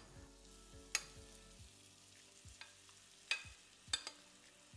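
Thick grated-zucchini batter dropping into a hot oiled frying pan, with faint sizzling and a few sharp taps of a utensil scraping the batter out of a glass bowl.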